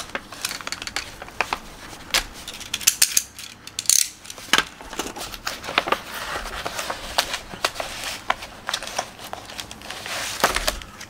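A brown paper envelope being opened and handled: paper crinkling and rustling with many irregular sharp crackles and clicks.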